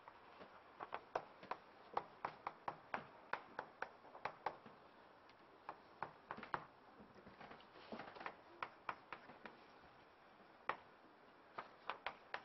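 Chalk tapping and scratching on a blackboard as equations are written: quick irregular runs of sharp ticks, with brief pauses between runs.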